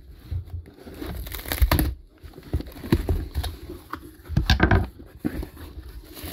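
Shipping packaging being torn and crumpled open by hand: irregular crinkling and rustling with sharper crunches, loudest a little under two seconds in and again around four and a half seconds in.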